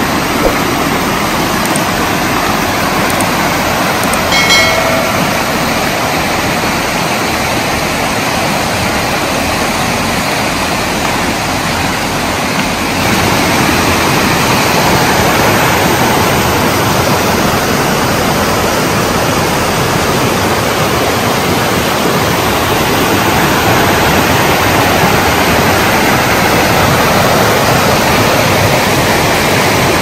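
Steady rushing of a fast-flowing river over rocks, growing a little louder about a third of the way through. A brief high-pitched squeak cuts through it about four seconds in.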